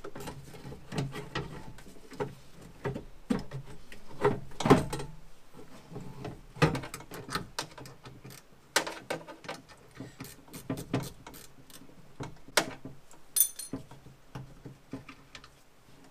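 Scattered, irregular clicks and knocks of a 10 mm ratcheting wrench and metal parts inside a stripped car door as two bolts at the bottom of the window regulator are loosened, with one brief high-pitched metallic ring near the end.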